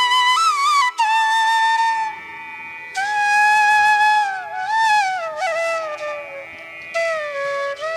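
Background music: a flute melody in Indian classical style, with notes that slide and bend, played in phrases over a steady drone.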